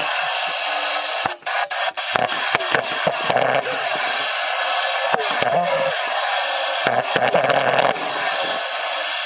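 Model pulsejet engine being started: it sputters and pops irregularly over a dense hissing rush, without settling into a steady run. Short coughing surges come about three and a half seconds in and again near the end.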